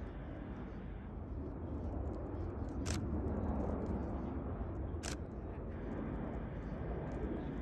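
Airbus Beluga XL's two Rolls-Royce Trent 700 turbofans heard as a steady, low rush of jet engine noise during a low flypast, with two sharp camera-shutter clicks about three and five seconds in.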